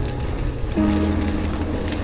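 Background music: held chords that shift to a new chord just under a second in, over a steady noisy rush.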